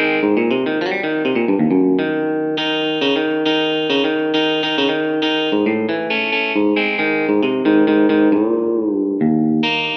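Electric guitar playing a blues riff of repeated two-note double stops and triplet runs. About eight and a half seconds in, a string bend pushes the pitch up and lets it back down.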